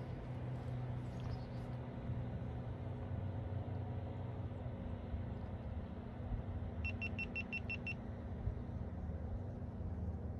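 Boat motor running steadily with a low hum. A little under seven seconds in comes a quick run of about seven short electronic beeps.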